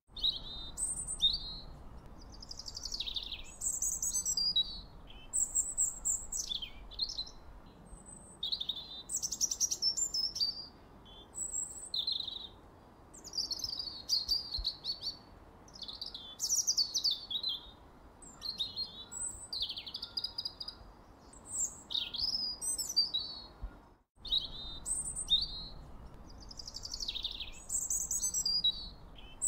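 A songbird singing a long run of varied, high-pitched chirping and warbling phrases with short pauses between them, over a faint steady hiss. The sound cuts out briefly about 24 seconds in, then the song resumes.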